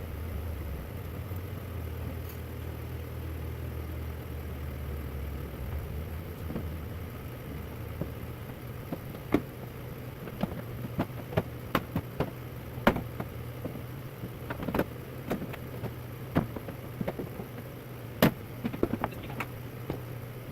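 Sharp clicks and knocks of tools and parts being handled during work on a truck's front end, scattered through the second half, over a steady low hum.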